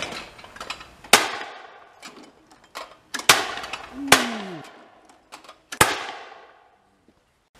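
Four shots from a clay-shooting shotgun, a second or two apart, each with a sharp crack and a fading tail. A short falling tone follows the third shot.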